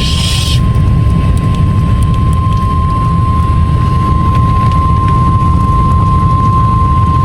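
NOAA Weather Radio warning alarm tone from a weather receiver: one steady, unbroken high beep held for the whole stretch, over a heavy low rumble. The tone signals that a warning broadcast is about to follow.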